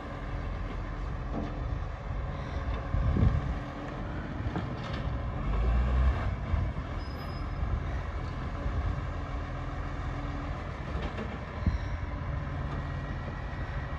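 Garbage truck engine running steadily at a distance while the truck works its collection run, with a couple of louder low rumbles about three and six seconds in.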